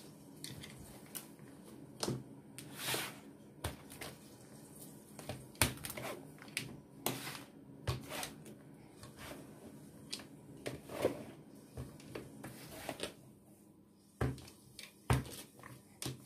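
Wooden rolling pin rolling out flatbread dough on a plastic cutting board: irregular soft knocks and brushing strokes as the pin goes back and forth and the board is turned on the table.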